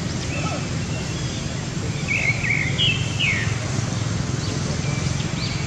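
Outdoor ambience: steady low background noise, with a cluster of short, high chirping calls about two to three and a half seconds in and a few fainter chirps later.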